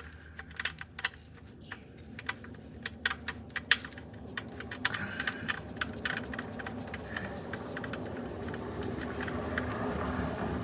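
Light metallic clicks and taps of the oil drain plug being threaded back into the oil pan. From about halfway a steady noise slowly grows louder, then cuts off suddenly.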